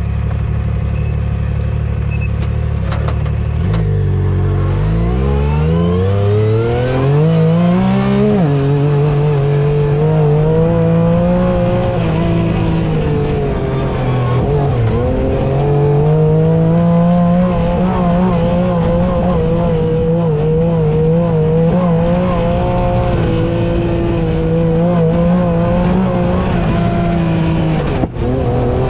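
Yamaha YXZ side-by-side's three-cylinder engine under way: it revs up steadily for a few seconds, drops sharply about eight seconds in, then holds a steady pitch at speed with a brief dip and climb back midway.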